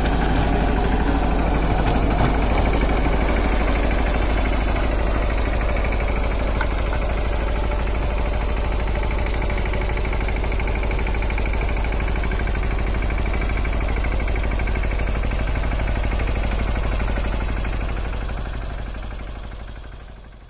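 Mahindra Yuvraj 215 mini tractor's single-cylinder diesel engine running steadily under load while driving a rotavator through the soil. The sound fades out near the end.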